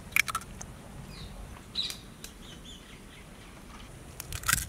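Eggshells cracked by tapping them with a knife blade: a few sharp clicks, with the loudest cluster near the end. Birds chirp faintly in the background.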